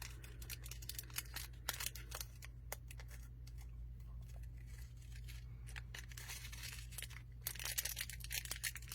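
Packaging being handled and unwrapped: rustling and tearing of wrapping with scattered small clicks and taps, and longer rustles about six and seven and a half seconds in.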